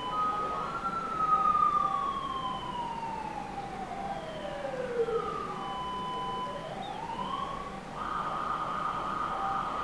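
A siren-like wailing tone. It falls slowly in pitch for about four seconds, then climbs back up within a second and holds steady near the end, with fainter steady and on-off tones underneath.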